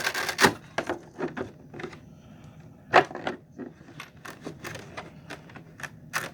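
Handling noise from fitting a hard plastic RC car body onto its side plates: a run of irregular clicks, taps and knocks, the sharpest about three seconds in and again near the end.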